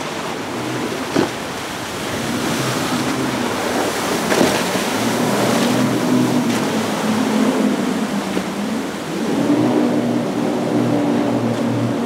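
Outboard engines of center console fishing boats running at speed through rough inlet chop, with a low drone that rises and falls, over a steady rush of breaking waves, spray and wind. A sharp thump comes about a second in.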